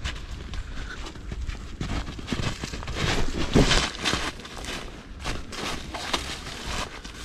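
Footsteps crunching in snow at a steady walking pace, one crunch for each step, the loudest about three and a half seconds in.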